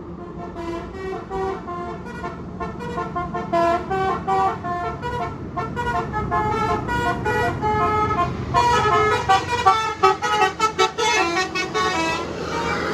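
Bus telolet horn of the basuri type playing a tune of short, stepped notes, quickening after about eight and a half seconds, with the bus engine running underneath.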